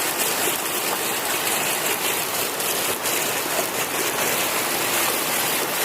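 Steady heavy rain falling and pattering on surfaces, a dense, even hiss.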